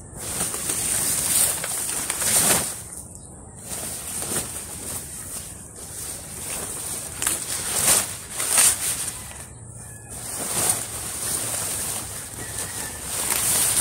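Large banana and taro leaves rustling and crackling as they are handled and gathered by hand, in irregular bursts. A steady high-pitched hum runs underneath.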